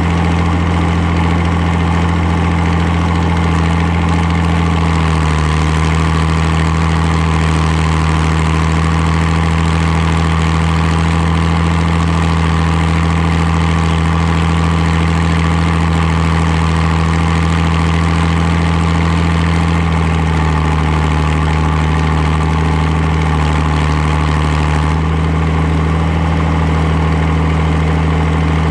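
Farmall 560 diesel tractor engine running steadily at an even speed, with its engine note shifting slightly a couple of times.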